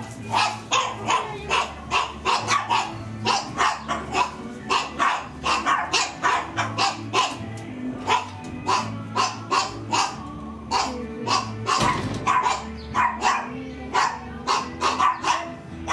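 A dog barking over and over, about three barks a second, with music playing underneath.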